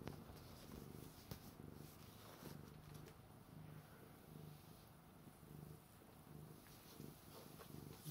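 Domestic cat purring as its belly is stroked, the low purr swelling and fading in an even rhythm about three times every two seconds, with a few soft clicks.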